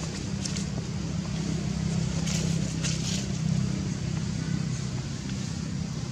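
A motor vehicle engine running steadily as a low hum, a little louder in the middle, with a couple of brief light clicks about two and three seconds in.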